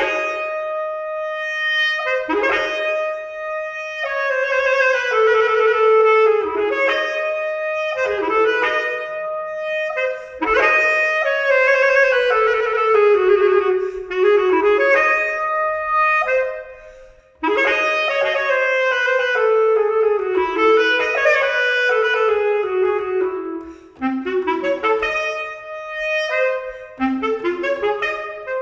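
Solo bass clarinet playing repeated phrases, each starting on a held note and falling in pitch, with a short pause about two-thirds of the way through and shorter, lower notes near the end.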